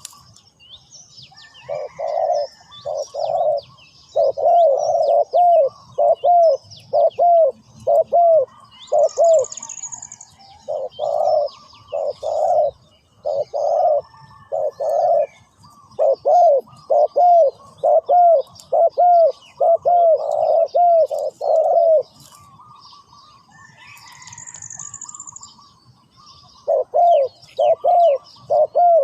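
Spotted dove cooing in phrases of repeated deep coo notes, falling silent for a few seconds near the end before starting again. Small birds chirp high above it throughout.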